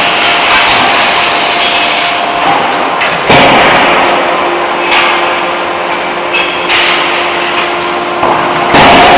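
CNC closed-die forging hammer at work: two heavy blows about five and a half seconds apart, with a few lighter knocks between, over loud steady machine noise and a faint hum.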